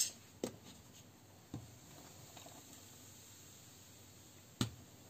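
Faint kitchen handling sounds as orange juice is poured from a plastic measuring jug into a glass bowl of flour: a couple of small clicks, a low quiet hiss, and one sharper knock near the end.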